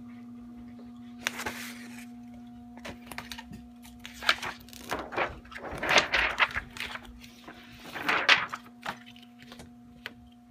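Heidi Swapp Minc machine humming steadily as it runs a laminating pouch through, with short bursts of rustling handling noise a little over a second in, again between about four and seven seconds, and once more around eight seconds.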